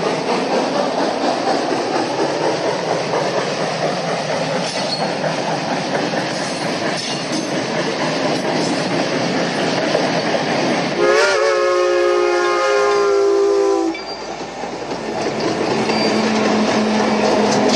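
Union Pacific 4-8-4 steam locomotive #838 and its excursion train rolling by, a steady rumble with rail clatter. About eleven seconds in, her three-chime steam whistle sounds one long blast of about three seconds, its pitch sagging slightly. After the whistle the sound drops back, and a steady low hum comes in near the end.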